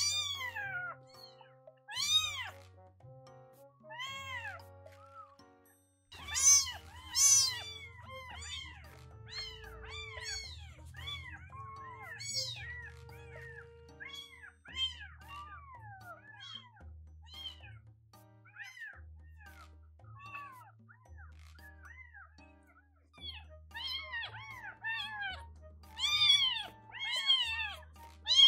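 Baby kitten mewing over and over in high cries that rise and fall, loudest about six to seven seconds in and coming thick again near the end. It is a hungry orphaned kitten crying for milk while it is stimulated to toilet. Background music plays underneath.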